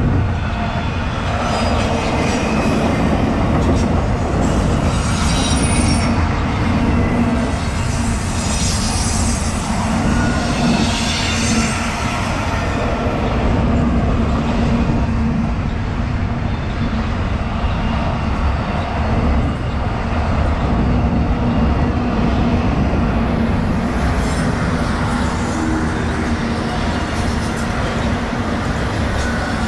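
Intermodal freight train passing close by: a steady, loud rumble and rattle of double-stack container well cars and trailer flatcars rolling over the rails. Faint high wheel squeals come and go from about 5 to 12 seconds in.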